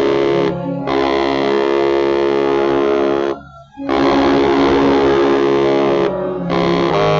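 Baritone saxophone playing loud, growling low notes, each held for two to three seconds, with short breaks between them.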